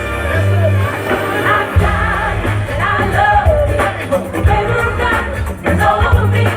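Gospel song performed live: a lead singer over a band with heavy bass and drum hits.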